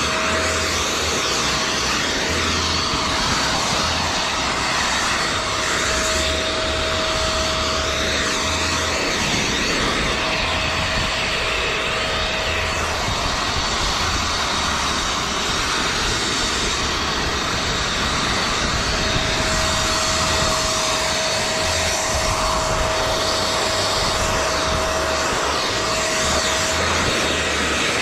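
Portable blower running steadily: a loud, even rush of air with a thin whine that fades in and out.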